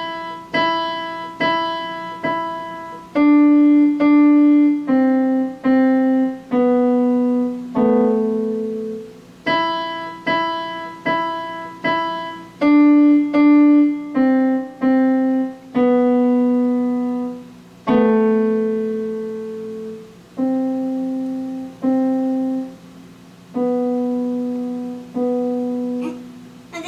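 Electronic keyboard with a piano sound, played one note at a time in a simple slow melody. Each note holds and fades, and the opening phrase comes round a second time about halfway through.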